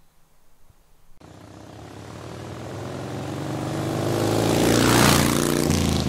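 A motorcycle engine that comes in about a second in and grows steadily louder for about five seconds, like a bike approaching, then cuts off suddenly at the end.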